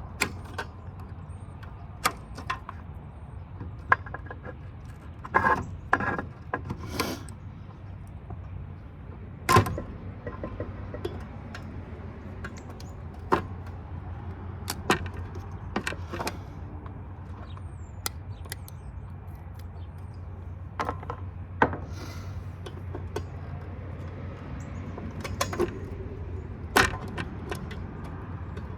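Irregular metallic clinks, clicks and knocks of hand tools working on the metal parts of a large power supply being dismantled, with a few short clusters of clatter, over a steady low hum.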